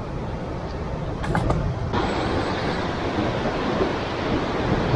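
Wind rumbling on the microphone and sea surf washing against rocks below, a steady noise with a few small clicks about a second in; it turns hissier about two seconds in.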